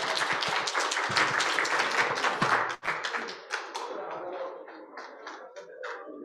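Audience applauding: dense clapping that thins after about three seconds to scattered claps and dies away.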